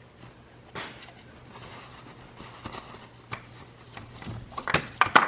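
Plastic bag rustling as a plastic funnel is taken out and handled, with scattered light knocks. A quick cluster of sharp plastic clatters comes near the end.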